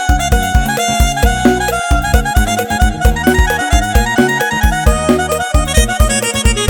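Electone keyboard playing up-tempo dance music live, a string-like lead melody over a heavy, steady bass drum beat.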